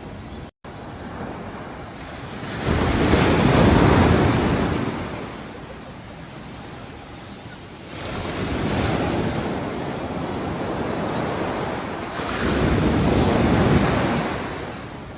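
Ocean waves breaking as surf, the wash swelling and fading with three big surges, with some wind on the microphone. The audio drops out completely for a split second just after the start.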